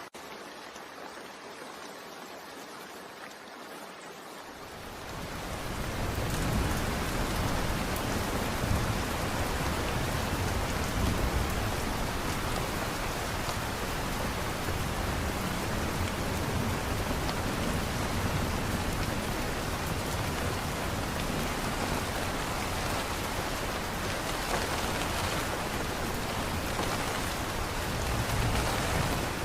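Steady rain, a dense even hiss of falling drops. It starts softer and thinner, then grows into heavier rain with more low rumble about five seconds in, which stays steady after that.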